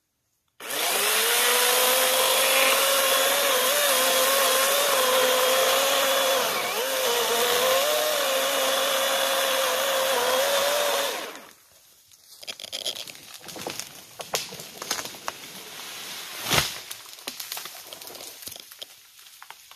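Battery chainsaw starting up and cutting through the trunk of a small dead tree: an electric motor whine that wavers a little in pitch as the chain loads in the cut, then stops suddenly after about ten seconds. Then come scattered crackles and snaps as the tree goes over, with one sharp crack near the end.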